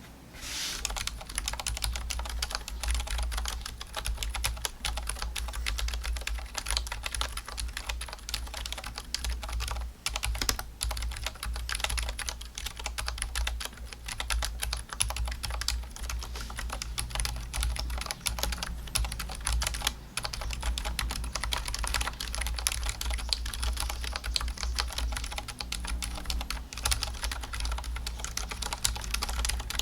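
Continuous typing on a mechanical keyboard fitted with stock, unlubricated ZealPC Zilents V2 62g silent tactile switches, with brief pauses about ten and twenty seconds in.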